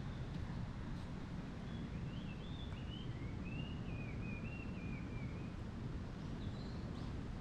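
A songbird sings one warbling phrase of wavering notes, then gives a short call near the end, over a steady low rumble.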